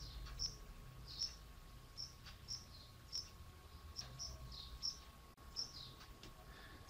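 Faint, high chirps repeating irregularly, about one every half second to a second, with a few faint ticks as a drafting compass's points are set on the paper.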